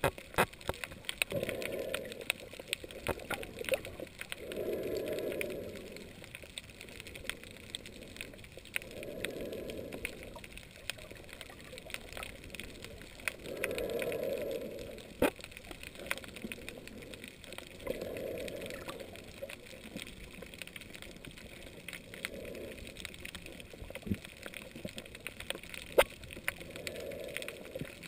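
Underwater ambience with a snorkeler's breathing: a muffled whooshing swell about every four seconds, over scattered sharp clicks and crackles in the water.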